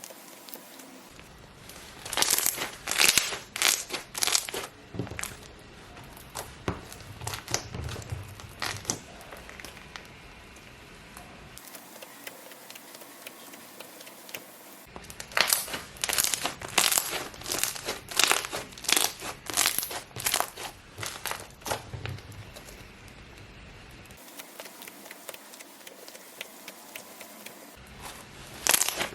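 Handmade slime being pressed and worked by hand, giving runs of crisp, crunchy crackling as air pockets pop. There are two long runs of rapid crackles with quieter handling in between, and a third run starts near the end.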